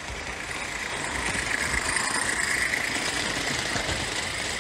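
Garden-scale live-steam locomotive and its coach running past close by on brass track, a steady rolling hiss and rumble that swells as it approaches and is loudest about two seconds in.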